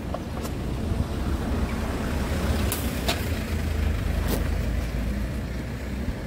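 A low rumble that swells for a few seconds, with several sharp clicks and taps as a hard-top rooftop tent's fabric cover and shell are handled during fold-down.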